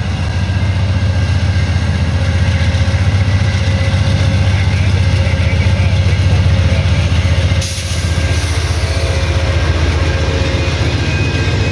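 Amtrak GE Genesis P42DC diesel-electric locomotive passing close by under power, its 16-cylinder diesel engine giving a loud, steady drone. About two-thirds of the way through, the drone eases slightly and a hiss joins in as the locomotive moves past and its passenger cars follow.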